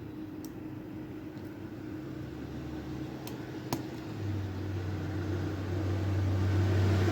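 A steady low mechanical hum that grows louder about four seconds in, with a few faint small clicks of a lock pick working the pins of a pin-tumbler lock.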